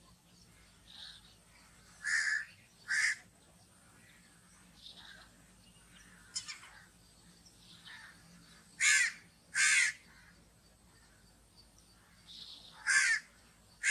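A crow cawing: loud harsh caws come in pairs about a second apart, three times, with fainter caws in between.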